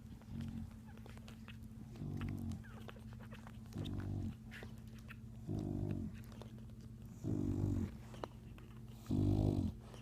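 English bulldog snoring in her sleep: six deep, rhythmic snores about every two seconds, each a little louder than the last.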